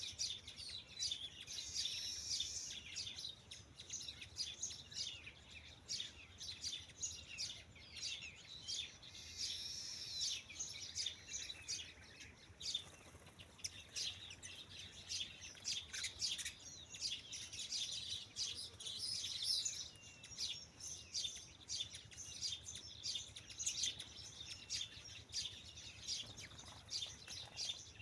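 Many birds chirping and calling together in a busy chorus of short high chirps that overlap throughout.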